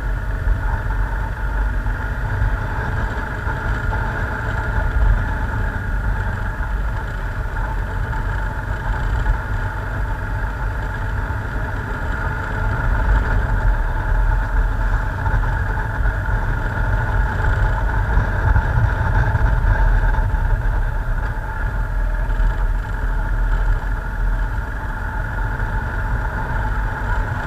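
Motorcycle engine running steadily at low road speed, heard from on board the bike, over a steady low rumble; it grows slightly louder about halfway through.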